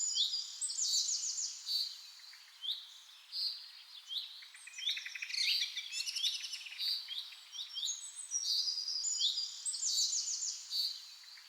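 Birdsong: several birds chirping and trilling in quick, overlapping high-pitched phrases over a faint hiss.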